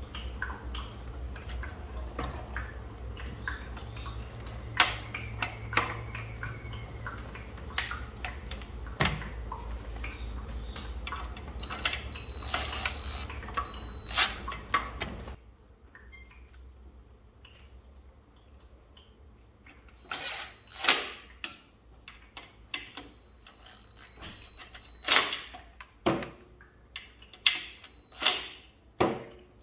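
Cordless drill/driver run in short bursts against the plasma table's electronics enclosure, mixed with clicks and knocks of handling parts and screws. A steady low hum underneath stops suddenly about halfway through.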